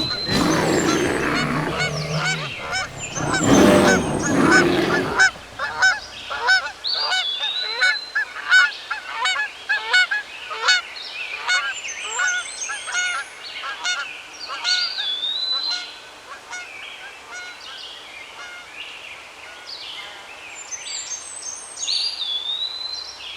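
Geese honking in a rapid, overlapping run of calls that thins out and grows quieter over the second half. A higher whistled bird call, rising then dipping, recurs several times over them.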